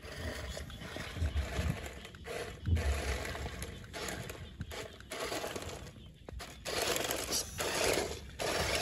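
Six-wheeled RC crawler truck driving over lumpy dirt: the electric motor and gears whirr while the tyres crunch and scrape over clods, louder near the end as it passes close.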